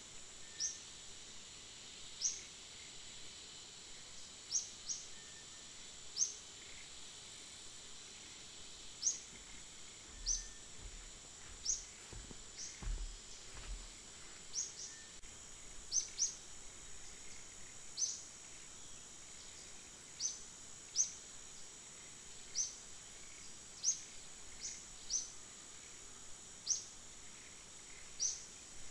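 Forest ambience: a steady high-pitched insect drone, with a short, sharp, high bird chirp repeated every one to two seconds.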